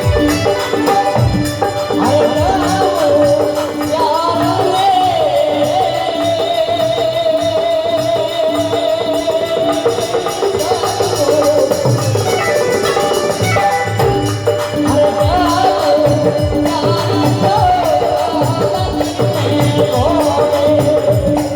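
Rajasthani devotional folk music: a long held, ornamented melody line over a steady drone, with hand percussion and jingling tambourine-like rattles.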